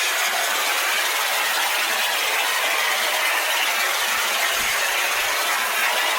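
Pressure-washer water jet spraying onto corrugated barn tin: a steady, unbroken hiss.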